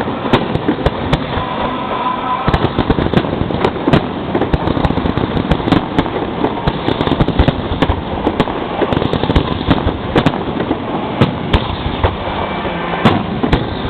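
Fireworks display: a dense barrage of shell bursts, with sharp reports coming several times a second over continuous crackling.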